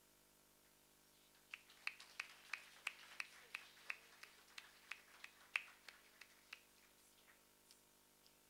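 Scattered applause from an audience: sharp hand claps that start about one and a half seconds in and die away about five seconds later, with a few stray claps near the end.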